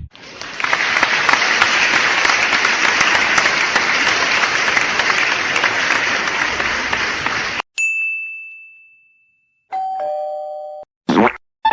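A run of stock sound effects. About seven and a half seconds of dense crackling noise stops abruptly. A single bright ding follows and fades over about a second and a half, then a two-note falling chime, then a brief noisy swish near the end.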